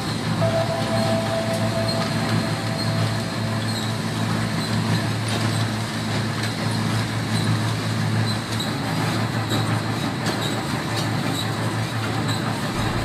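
Clay brick plant machinery running: a belt conveyor carrying clay lumps and a belt-driven clay crushing machine, a steady mechanical rumble and hum with scattered clicks and rattles.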